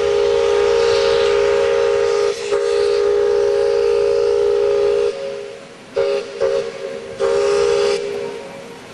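Steam locomotive whistle on the 600 mm Pelion narrow-gauge railway: two long blasts with a brief break, then several short toots and a final short blast, over a steady hiss.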